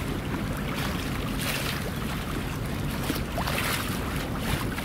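Wind buffeting the microphone in a steady low rumble, with harbour water lapping against the quay in short hissy washes several times.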